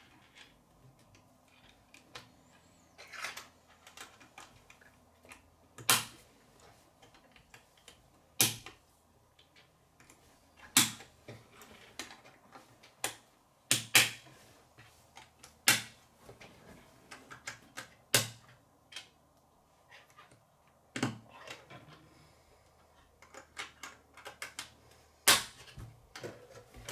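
K'nex plastic rods and connectors clicking as they are snapped together and knocked against a wooden tabletop: sharp, irregular clicks every second or two.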